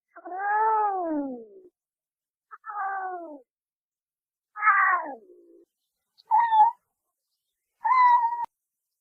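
Cat meowing five times. The first meow is the longest, rising and then falling in pitch, and the later ones are shorter.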